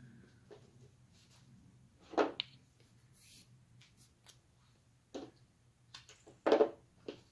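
Rolled paper weaving tubes rustling and scraping as they are handled, in a few short bursts. Two come close together about two seconds in, another just after five seconds, and the loudest is near the end.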